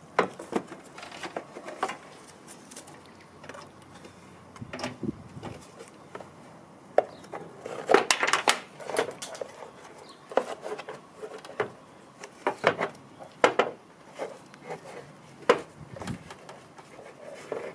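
Irregular hard plastic knocks, clicks and scrapes as a plastic airbox and the ribbed intake hose's connector are handled and pushed into the mounting slot, with the loudest cluster about eight seconds in.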